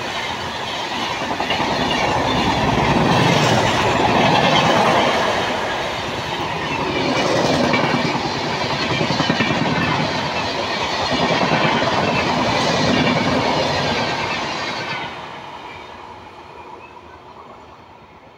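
Rajdhani Express passenger coaches passing at speed, wheels running loud on the rails, swelling and easing every few seconds. The noise drops away about fifteen seconds in as the last coach passes and the train recedes.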